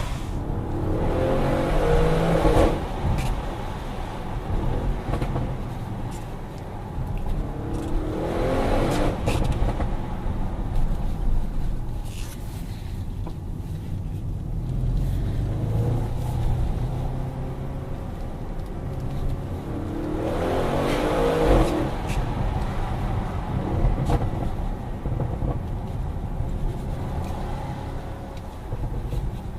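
Audi RS6 Performance's twin-turbo V8 engine under way, mostly cruising with a low steady note, with the revs climbing in three rising pulls: one just after the start, one about eight seconds in and one about twenty seconds in.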